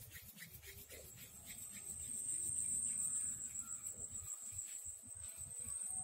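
A cricket chirring in a steady, high, even tone, with a low rumble during the first four seconds.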